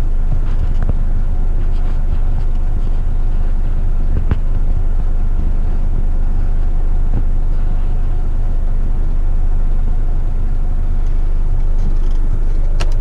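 Diesel engine of an 8-wheeler twin-steer garbage truck running steadily, a low rumble heard from inside the cab, with a faint click about four seconds in and another near the end.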